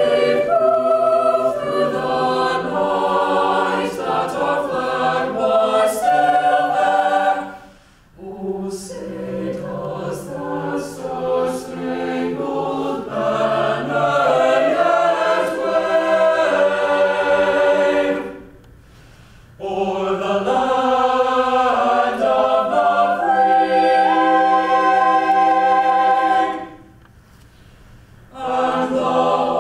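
A choir singing a song in long phrases, breaking briefly three times between phrases.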